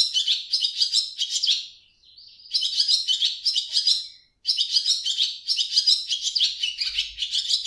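Swallow twittering: rapid high chirps run together in quick phrases, breaking off briefly about two seconds in and again just after four seconds.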